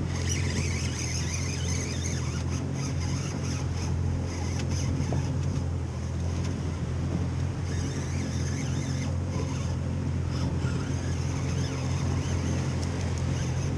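Boat's outboard motor idling with a steady low hum, under wind and water noise.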